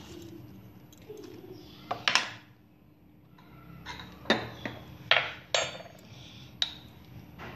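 Kitchen dishes and spoons clinking and knocking as they are handled and set down: several separate sharp knocks.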